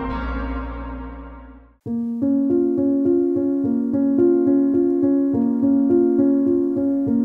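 Background music: one track fades out, then after a brief gap a new track starts with a steady pulse of repeated electric-piano notes, about four a second.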